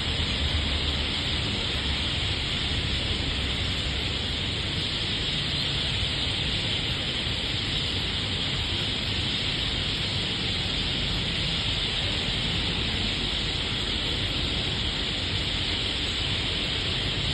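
A large flock of birds calling all at once, blending into a steady, dense high-pitched din, over a low city rumble.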